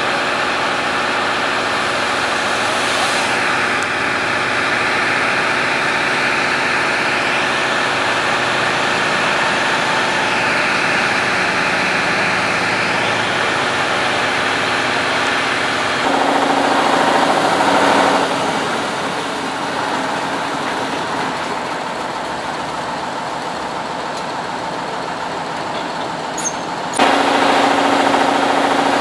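Tatra 815 fire engine's air-cooled diesel engine running steadily while it drives the pump, with the rush of a water jet from the roof monitor. The engine note changes about halfway through and steps up abruptly and louder near the end.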